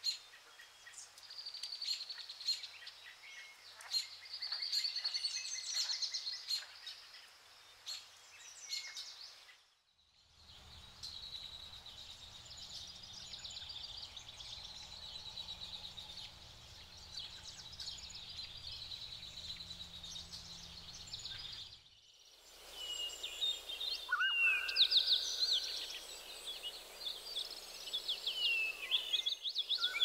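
Wild birds singing and chirping, many short overlapping calls and trills, with brief breaks in the sound about ten and twenty-two seconds in.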